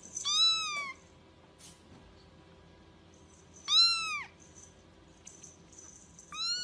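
A cat meowing three times, about three seconds apart: short high-pitched meows, each rising and then falling in pitch.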